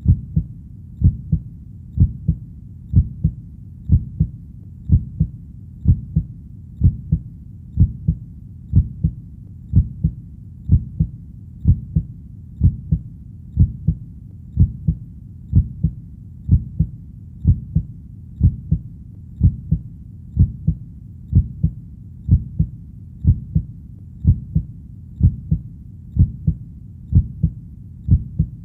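Heartbeat: a steady rhythm of low, muffled double thumps (lub-dub), about one beat a second, over a faint low rumble.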